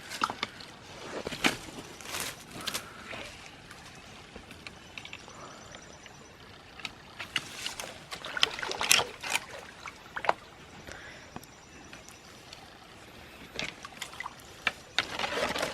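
Creek water sloshing and splashing as sticks and wood debris are pulled out of a clogged stretch of a small creek, with irregular sharp knocks and cracks of wood throughout.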